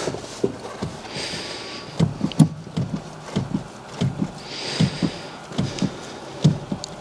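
Clutch pedal of an R56 Mini Cooper S being pressed and released several times, giving irregular soft knocks and clicks from the pedal and its linkage, with the clutch hydraulics freshly bled.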